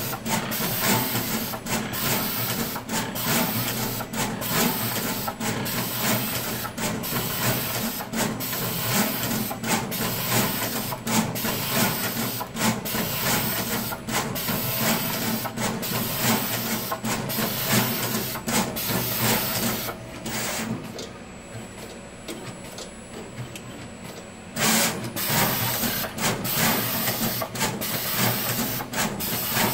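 Manncorp pick-and-place machine running, its placement head moving back and forth with a steady mechanical sound and a sharp tick roughly every two-thirds of a second. About twenty seconds in the ticks stop and it goes quieter for about four seconds, then resumes abruptly.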